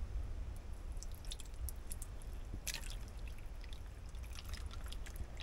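Thick sauce poured from a plastic measuring jug onto sliced raw potatoes in a bowl, splatting and dripping in irregular small plops over a low steady hum.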